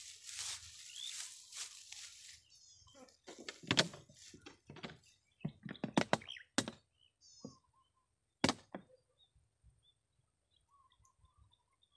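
Dry grass rustling and crunching as someone pushes through it, then a series of sharp knocks and thunks, with faint bird chirps near the end.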